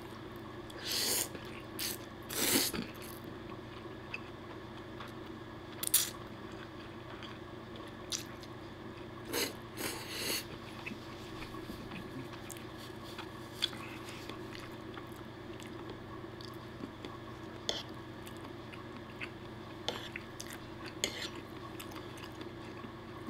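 Spaghetti being eaten with a fork from a wooden plate: chewing, and the fork clicking against the plate now and then. A few short, loud noisy bursts of mouth sound come in the first half.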